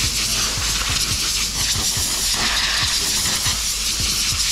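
Compressed-air blow gun on a shop airline hissing steadily as it blows sanding dust off the sanded body-filler repair area.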